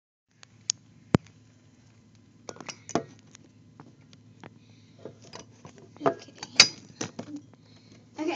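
Handling noise from a phone being picked at and set in place: scattered sharp knocks and taps against the microphone, the loudest about a second in and again around six and a half seconds, over a faint steady low hum.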